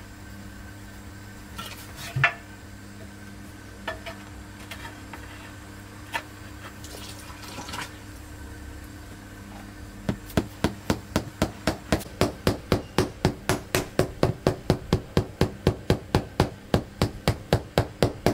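Mallet tapping a ceramic floor tile down into a wet mortar bed, a quick even run of about four taps a second that starts about ten seconds in. Before that, a few scattered scrapes and knocks of a steel trowel working the mortar and the tile being set down.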